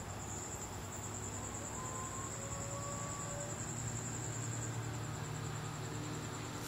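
Crickets trilling steadily at a high pitch, over a low steady hum.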